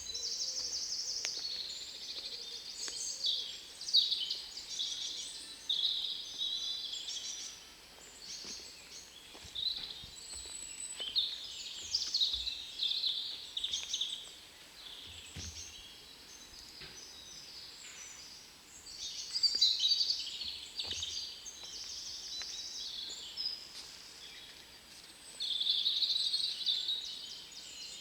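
Spring woodland birdsong: several birds singing at once, with overlapping high, quick phrases and rapid trills that come and go.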